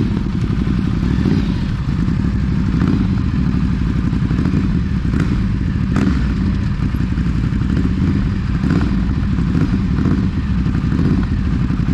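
Motorcycle engine running at low speed, a steady low rumble with fast pulsing, with a couple of sharp clicks about halfway through.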